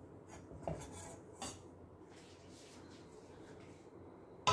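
A stainless-steel plate lid lifted off a steel dish in a pan: two light metal clinks, about 0.7 s and 1.5 s in, against a quiet background, and a sudden louder sound right at the end.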